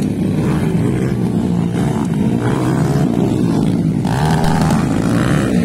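Several two-valve underbone motorcycle engines racing on a dirt track, revving up and down as the bikes take the jumps.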